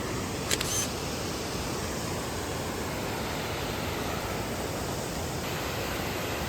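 Steady rushing of Kings Creek tumbling down its falls, heard close by. A brief click comes about half a second in.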